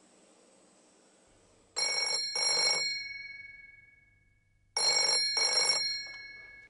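Old black desk telephone's bell ringing: two double rings about three seconds apart. Each is a pair of short jangles whose bell tones ring on and fade. The second is cut off near the end as the handset is lifted.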